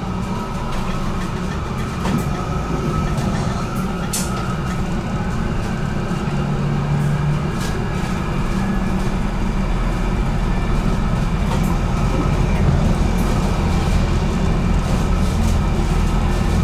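HTM GTL8 tram running along the track, heard from on board: a steady low rumble of wheels and motors that grows gradually louder, with a few sharp clicks.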